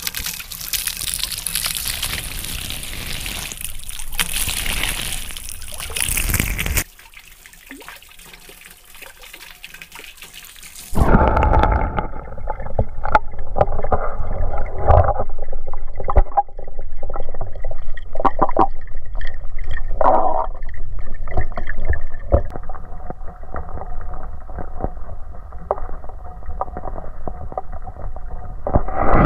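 Garden pond fountain: its water jet splashes and falls back into the pond for several seconds. About eleven seconds in the microphone is underwater, and the sound turns suddenly louder and muffled: a dull gurgling with irregular knocks and no bright highs.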